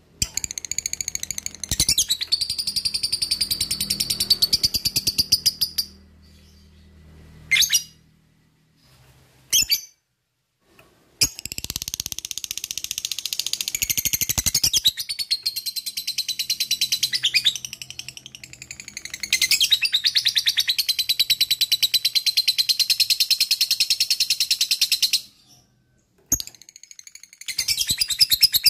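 Lovebird ngekek: a long, very fast high-pitched chattering trill delivered in runs of several seconds, broken by short pauses with a few single calls.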